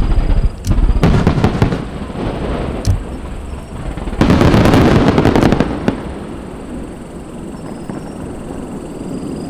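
Aerial fireworks display: several loud shell bursts in the first two seconds, then a dense volley of rapid crackling bangs about four seconds in that lasts a second or two before dying away into a lingering wash of echo.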